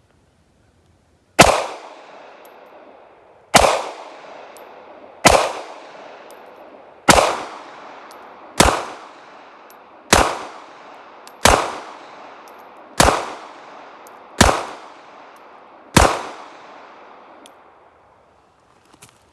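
Ten shots from a Smith & Wesson Bodyguard 2.0 .380 ACP pocket pistol, fired one at a time about every one and a half to two seconds, each crack followed by a short ringing echo.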